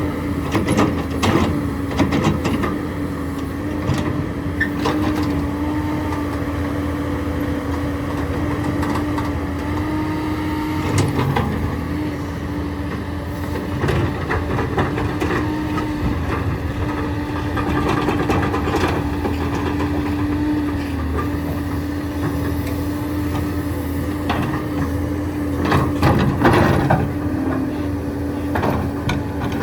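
Excavator's diesel engine and hydraulics running steadily under load with a constant hum, while the bucket digs limestone, giving scattered knocks and scrapes of rock, several near the start and again near the end.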